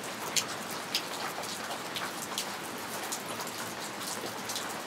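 Steady rain falling, with individual raindrops ticking sharply close by at irregular intervals.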